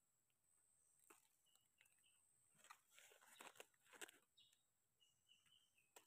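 Faint scraping and crunching of a small knife trimming soil from the stem base of a freshly picked wild mushroom, a few light scrapes clustered around the middle, with dry leaf litter crackling under the hands.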